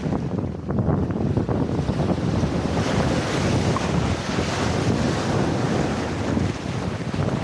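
Atlantic waves washing on the shore under strong wind buffeting the microphone, with a wave surging louder in the middle.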